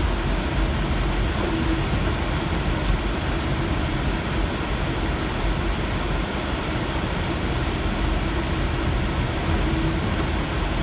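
Steady cabin noise of a moving car on a snow-covered road: engine and tyre rumble, heavy in the low end, with a faint steady hum.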